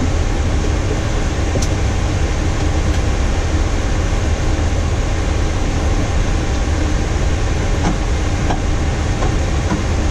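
Steady low rumble and rush of air inside a Boeing 737-800 cockpit on the ground, with a few faint clicks.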